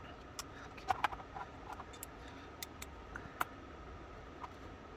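Light metallic clicks and ticks from small steel pistol-lock parts and hand tools being handled, scattered irregularly and mostly in the first three and a half seconds, over a faint steady high hum.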